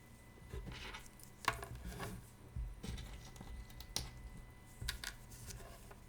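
Irregular small clicks and taps, about eight spread over several seconds, from small tools and watch parts being handled during watch repair.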